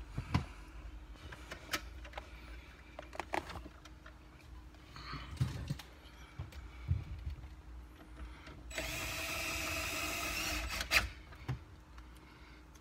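Cordless drill-driver running steadily for about two seconds near the end, driving a screw, after a series of light clicks and knocks from handling plastic dash parts.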